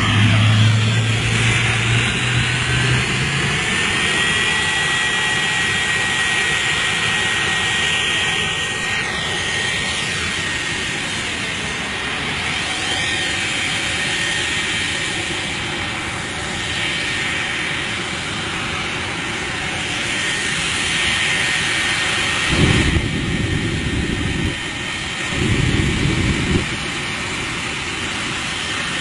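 Jet car's turbine engine running at high power: a steady jet roar with a high whine that climbs in pitch over the first few seconds, then holds. The exhaust blast is burning a car. Two louder, deeper surges come near the end.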